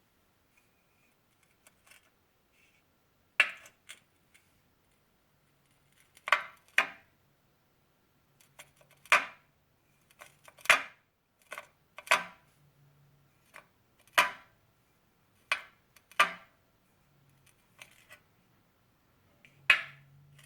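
A series of sharp, hard clicks or clacks at irregular intervals, about one every second or two and sometimes two in quick succession, each with a short ring.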